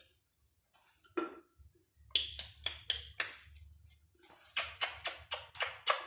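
African grey parrot making two quick runs of sharp clicks, about five a second.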